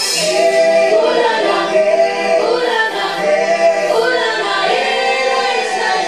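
Music with a choir of voices singing together.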